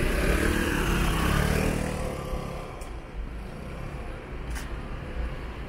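A motor vehicle drives by on the street, its engine and road noise falling in pitch and dying away after about two seconds. Steady city traffic noise remains.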